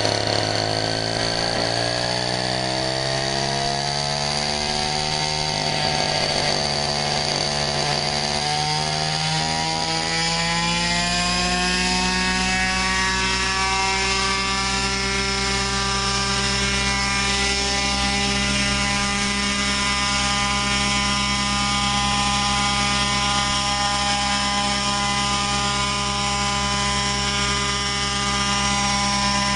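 Century Predator Gasser RC helicopter's small two-stroke gasoline engine and rotor running. The pitch sags a few seconds in, then climbs over several seconds as the helicopter spools up and lifts off, and settles to a steady high note in hover.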